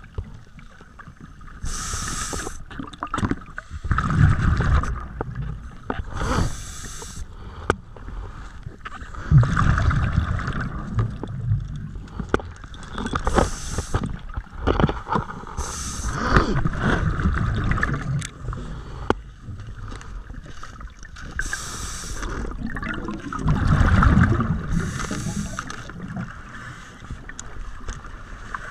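Scuba diver breathing underwater through a regulator: short hissing inhalations alternating with longer low bubbling rumbles of exhaled bubbles, repeating every few seconds.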